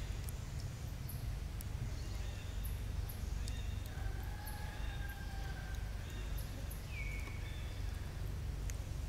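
Outdoor background: a steady low rumble with scattered faint clicks and a few faint tonal calls, one a short falling call about seven seconds in.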